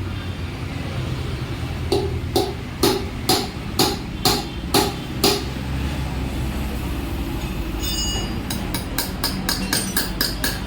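Hammer blows on metal during wheel and tyre fitting. About eight hard strikes come roughly two a second, then after a pause a quicker run of lighter taps follows, with a brief metallic ring, over a steady low hum.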